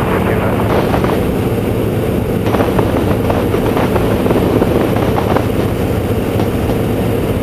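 A Boeing Stearman PT-17 biplane's radial engine running steadily in cruise, with the rush of air through the open cockpit.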